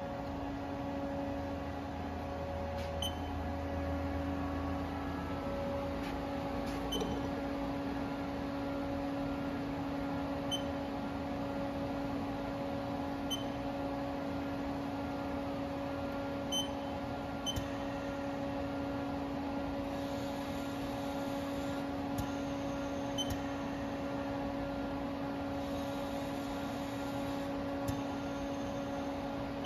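Steady electrical and mechanical hum of shop machinery, a low tone with a higher whine above it. A deeper rumble sits under it for the first few seconds, and faint short high ticks come now and then.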